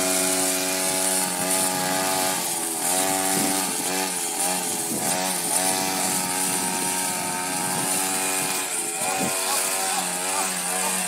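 Small-engine string trimmer (weed eater) running continuously, its engine pitch dipping and recovering several times.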